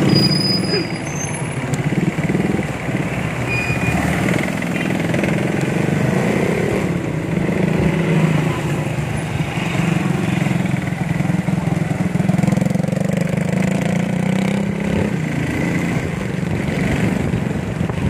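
Street traffic: motorcycle and other vehicle engines running close by, a steady low engine hum with vehicles passing.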